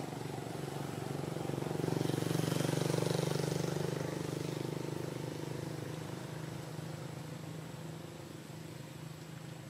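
A motor vehicle's engine hum swelling as it passes, loudest about two to four seconds in, then slowly fading.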